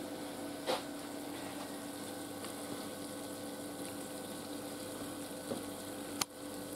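Steady background hum of a kitchen, holding a few fixed tones over a faint hiss. There is a small click about a second in and a sharper click near the end.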